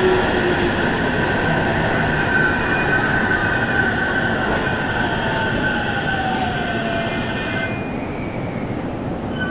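JR Central 313 series electric train's Toshiba VVVF inverter and traction motors whining over wheel and rail rumble, a steady high whine with lower tones sliding down in pitch; the sound eases slightly toward the end.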